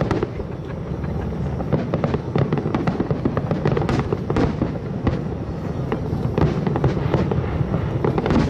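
Aerial fireworks display: shells bursting in a rapid, continuous string of bangs and crackles, one overlapping the next.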